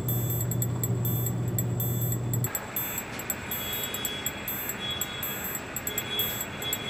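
Soundtrack music with an even, clock-like ticking beat. About two and a half seconds in, the steady low hum under it drops out and a higher airy hiss with a faint whistling tone takes over.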